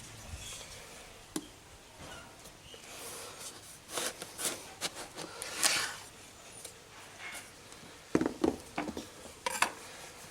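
Knife cutting open a winter melon: scrapes of the blade through the firm rind and flesh, with a group of sharp knocks about four to six seconds in and another near the end.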